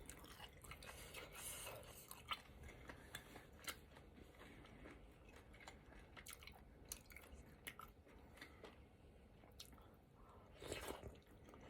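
Faint chewing and small wet mouth clicks of a person eating, with a short louder stretch near the end.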